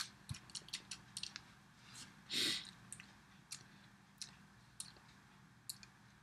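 Faint lip smacks and tongue clicks of a man tasting a mouthful of beer: a scattering of short, sharp clicks, with one short breath about two and a half seconds in.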